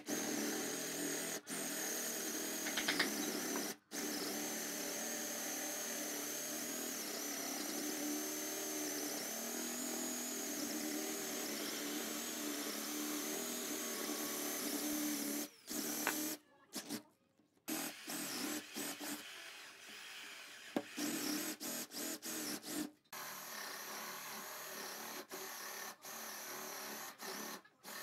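A cordless drill boring holes in a solid wood board with a Forstner bit, the motor whining steadily under load for about fifteen seconds. After that it runs in short stop-start bursts as further holes are drilled.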